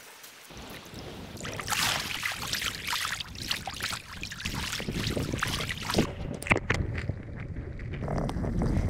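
Choppy seawater splashing and sloshing against a camera held at the water's surface; about six seconds in it goes under and the sound turns to a muffled, low underwater rush.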